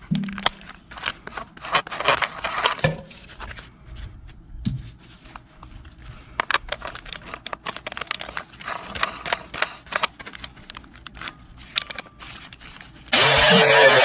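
Clicks, knocks and scrapes of an angle grinder's attachment being changed by gloved hands, with a wire cup brush threaded onto the spindle. Near the end the grinder switches on and runs with a steady whine.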